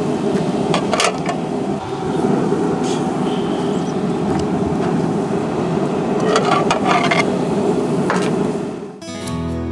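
Steady outdoor rumble with a few sharp clicks and clanks of cookware being handled at the open pellet grill. Acoustic guitar music starts near the end.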